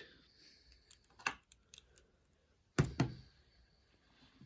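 Metal hand tools being handled: a ratchet with a socket adapter fitted gives a few light clicks and one louder knock just under three seconds in.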